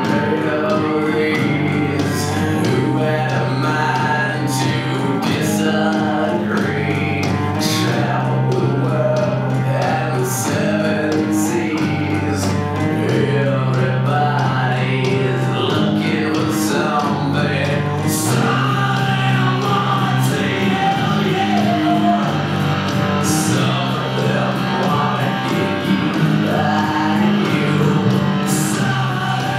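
Music: a rock-style song with a singer over guitar, drums and a bass line that changes note every second or two.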